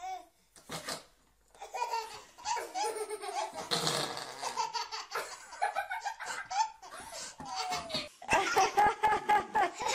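Baby laughing in repeated belly-laugh bursts, which come faster and loudest near the end.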